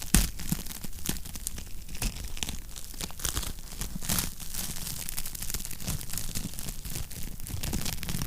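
Wood fire crackling and popping in a fireplace, a steady run of sharp snaps over a low rumble of flames, with a louder pop right at the start.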